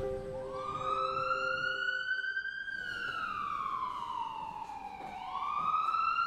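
Emergency vehicle siren wailing slowly: its pitch climbs for about two and a half seconds, sinks for about as long, then climbs again. Soft background music fades out under it.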